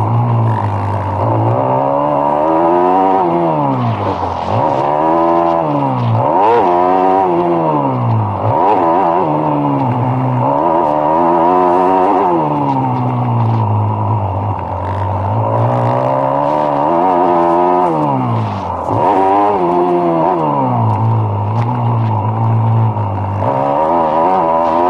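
Motocross bike engine heard on board, revving up and dropping back over and over, about every two to three seconds, as the throttle is worked around the track. A few short knocks and clatters come in among the engine sound.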